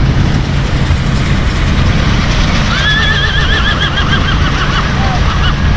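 A horse whinnying once, from about three seconds in, a high call that quavers rapidly in pitch for about two and a half seconds, over a steady low hum.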